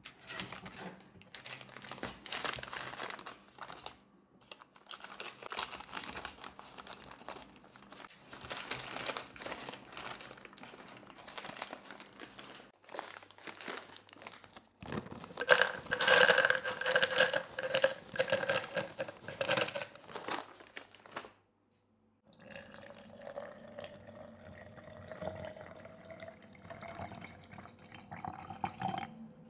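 A packet of cashew nuts crinkling and rustling as it is handled and opened. Then the cashews are poured into an empty glass jar, clattering against the glass and setting it ringing. In the last third, liquid is poured into the jar, with a pitch that rises steadily as the jar fills.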